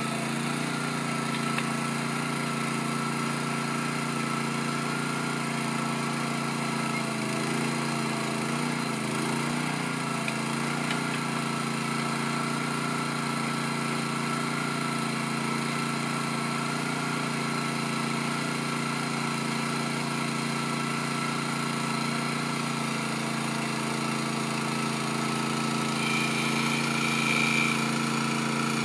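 Small combustion engine on a line trolley, which drives the wheels through a hydraulic circuit, running steadily at idle. A brief higher whine comes in near the end.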